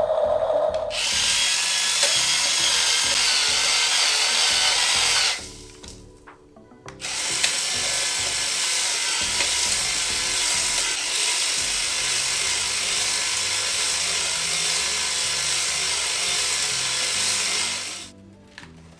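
Small electric motors and gearboxes of radio-controlled toy construction vehicles whirring steadily. They cut out about five seconds in, run again a second and a half later, and stop near the end.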